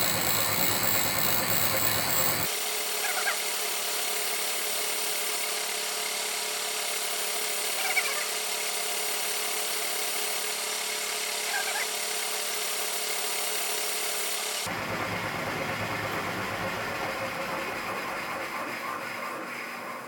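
Milling machine spindle turning at its slowest speed, with a steady machine hum, while a drill bit is pressed into hardened steel without pulling out any chips. A few brief squeaks come from the cut. The running sound falls away near the end.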